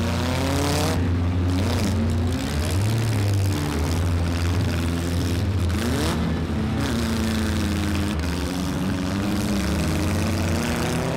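Engines of several stock four-cylinder demolition derby cars running and revving together, their pitches rising and falling over a steady low drone.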